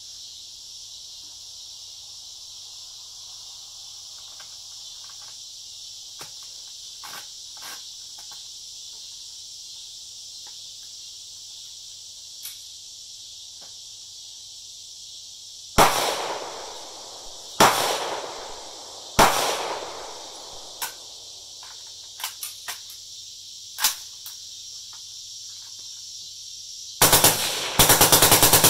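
Faint metallic clicks of the rifle being handled, then three single gunshots about a second and a half apart just past the middle. Near the end a full-auto burst from a suppressed 16-inch Dissipator M16-pattern machine gun, rapid shots running together.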